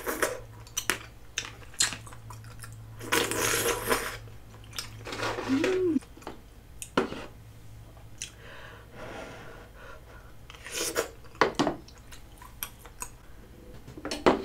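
Close-miked eating sounds: wet chewing and slurping of chewy, saucy rice cakes and glass noodles, broken by sharp clicks of wooden chopsticks and a wooden spoon against the bowl.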